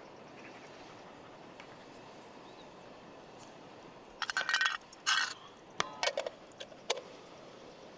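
Irregular clinks and knocks of cooking utensils and cookware being handled, some ringing briefly. They start about halfway through, after a quiet stretch.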